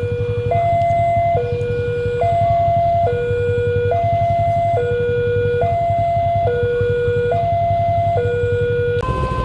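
Railway level-crossing warning siren sounding a steady hi-lo two-tone wail, switching pitch about every second, over a low steady rumble. Near the end the tones jump abruptly to a higher pair.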